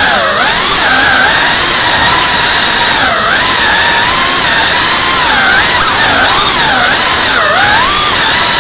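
Tiny whoop FPV drone's small motors and propellers whining loudly, the pitch swinging up and down with the throttle and dipping briefly three times.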